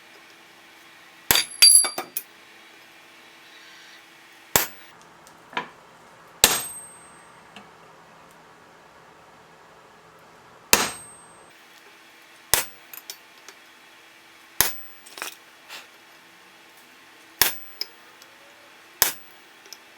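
Hammer striking a flat chisel to cut center lines into the jaws of forged blacksmith tongs: single sharp metallic blows, irregularly spaced about a second or two apart, some ringing briefly. A faint steady hum runs underneath.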